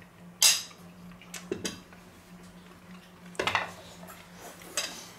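Cutlery clinking against a plate while eating: one sharp clink about half a second in, then several lighter clinks, over a faint steady hum.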